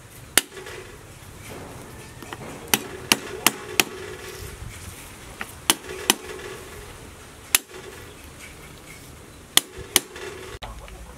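A cleaver striking a round wooden chopping block while cutting garlic cloves: about ten sharp single knocks in uneven groups, four in quick succession a few seconds in.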